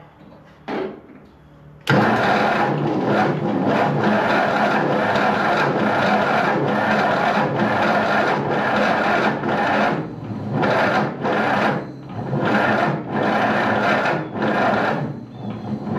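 Ford 8N tractor's starter cranking its four-cylinder flathead engine, starting abruptly about two seconds in and running on with a pulsing rhythm without the engine catching. The cranking grows more uneven and labouring in the last few seconds, a sign of a nearly dead battery.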